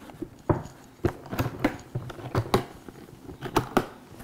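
Latches of a hard plastic equipment case being unsnapped one after another: a series of sharp plastic snaps and knocks, several in quick pairs.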